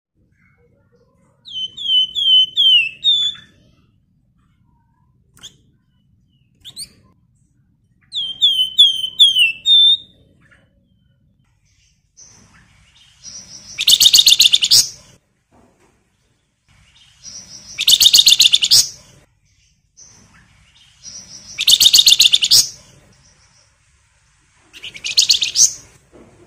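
Flamboyan (wergan Jawa) songbird singing: two runs of about five quick down-slurred whistles, then four harsh, buzzy chattering rattles, each a second or two long.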